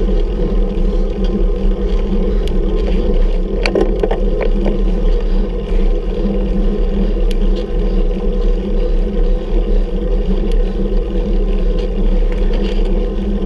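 Steady rumbling wind and road noise on a bicycle-mounted camera during an uphill ride, with a few short clicks about four seconds in.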